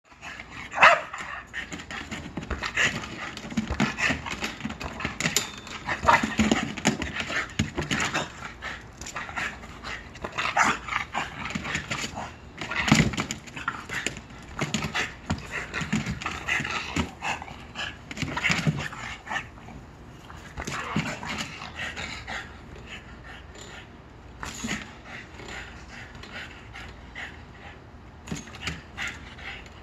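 Small dog panting hard, with irregular short huffs and sharp noises, as it jumps and lunges after a swinging tetherball.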